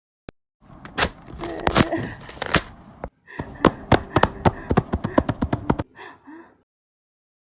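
A run of irregular sharp taps and knocks, like objects being handled or struck, over a low hiss; it stops about six seconds in and the track goes dead silent.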